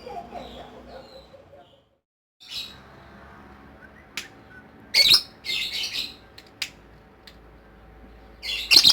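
Lovebird giving a series of short, harsh, shrill squawks, scattered irregularly, with the loudest burst near the end.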